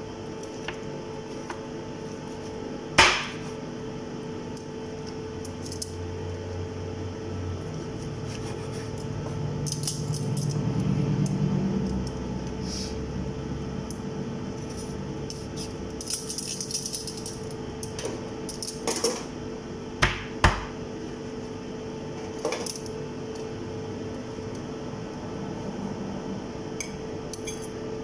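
Scattered knocks and clatter of dishes, pots and utensils being handled, one sharp knock about three seconds in and a cluster of several a little past halfway, over a steady hum.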